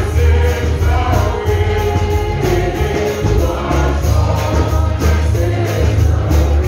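Live gospel song: singers into microphones over amplified accompaniment with a heavy bass and a steady beat.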